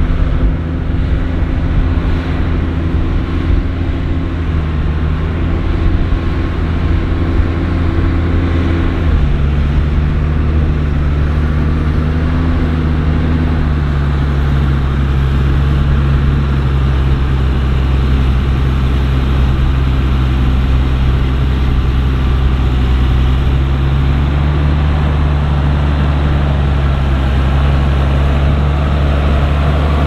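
JCB Fastrac tractor's diesel engine running steadily under load while pulling a five-furrow plough through the soil. Its note drops a little about nine seconds in and again a few seconds later.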